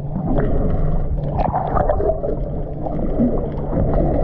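Muffled underwater sound picked up by a camera held below the surface: water rushing and bubbling over a steady low rumble, with scattered small clicks and knocks.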